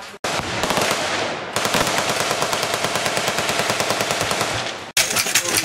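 Full-automatic gunfire from a firing line: rapid strings of shots in long bursts, overlapping into a continuous rattle. The sound drops out sharply twice, about a quarter second in and again near the end, where the recording is cut.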